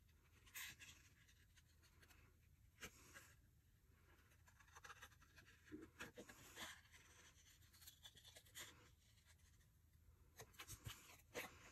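Faint, irregular snips of small pointed scissors fussy-cutting stamped strawberries out of white cardstock, with light paper rustling.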